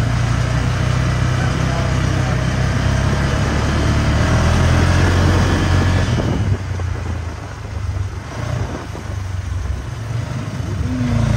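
A motor vehicle running, a loud steady rumble that eases about six and a half seconds in.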